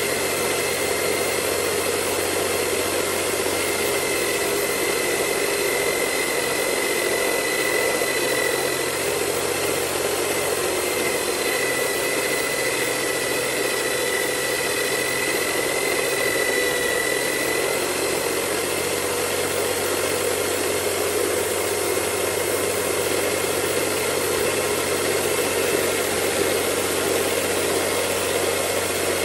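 Homemade belt sander, driven by a mounted Ingco corded electric drill, running steadily with a high motor whine over an even hiss, while a wooden stick is held against the moving sanding belt.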